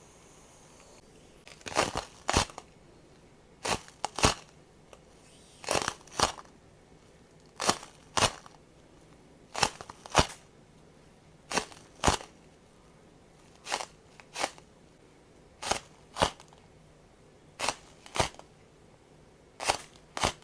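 Crinkly plastic crunching from a nano tape balloon being squeezed, in pairs of short strokes about half a second apart that repeat evenly about every two seconds.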